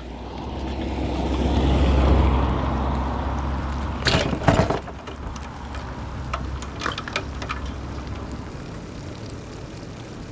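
A car passing on a wet road, its rumble and tyre hiss swelling to a peak about two seconds in and then fading. A loud clatter comes about four seconds in, then scattered clicks over a steady hiss of tyres on wet asphalt.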